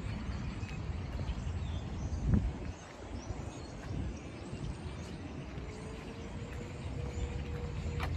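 Outdoor ambience of a walk: a low, fluctuating rumble of distant traffic and wind, swelling briefly about two seconds in, with a few faint footstep clicks.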